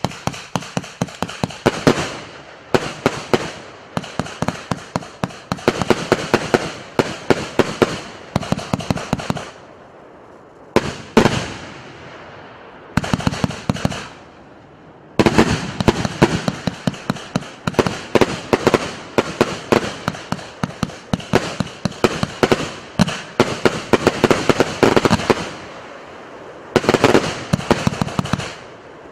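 Р8311 84-shot firework cake of 50 mm and 30 mm tubes firing: rapid volleys of sharp launch thumps and aerial bursts, several a second, broken by a few brief lulls between volleys.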